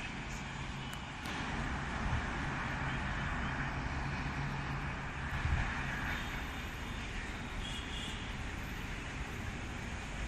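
Passenger train hauled by an electric locomotive rolling past: a steady rumble of wheels on rail with a low hum.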